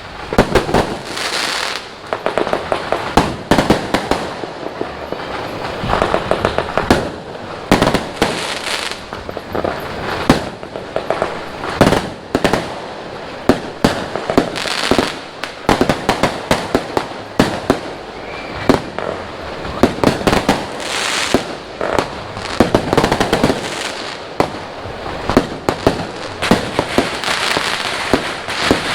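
Fireworks and firecrackers going off without a break: many sharp bangs at uneven intervals, some rapid crackling runs, over a constant haze of distant explosions.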